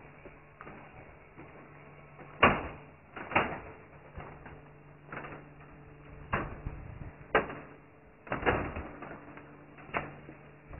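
Footsteps knocking on wooden shuttering planks and the steel reinforcing mesh laid for a concrete roof slab: about seven sharp knocks, roughly one a second, over a faint low steady hum.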